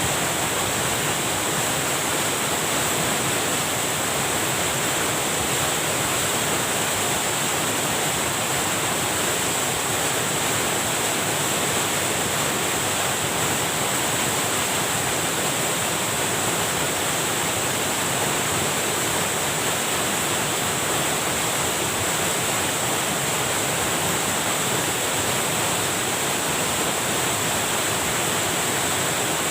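Steady rush of water pouring over a small weir, an even, unbroken roar of falling water.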